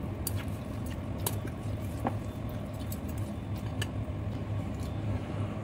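Eating sounds: scattered light clicks of chopsticks against a bowl as noodles are stirred and lifted, over a steady low hum.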